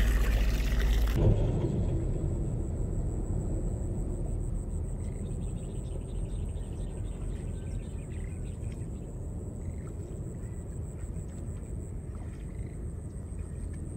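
Water splashing and pouring off a gill net as it is lifted from a shallow pond, cut off sharply about a second in. After that a steady low outdoor rumble, with a faint steady high whine and scattered faint chirps.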